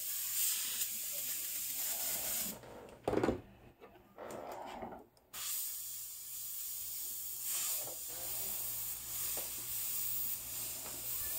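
Airbrush spraying paint with a steady hiss of air. The hiss stops for about three seconds near the middle, with a single knock about three seconds in, then starts again.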